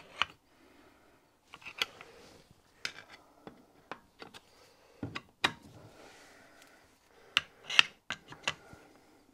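Irregular sharp metallic clicks and clinks of a long slotted screwdriver and steel screws being worked by hand, tightening screws into an engine's crankshaft bearing housing. The loudest clicks come about a fifth of a second in, around five and a half seconds in, and twice close together between seven and eight seconds in.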